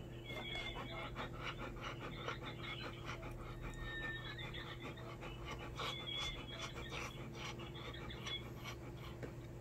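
Golden retriever panting softly, a quick, rhythmic huffing breath with her mouth open, over a steady low hum.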